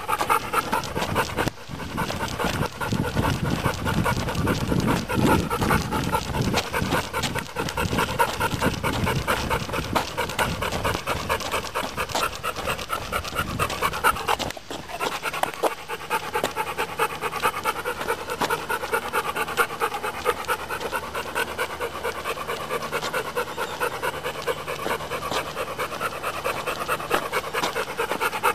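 Dog panting fast and hard, a rapid, rhythmic huffing that sounds like a steam engine chuffing.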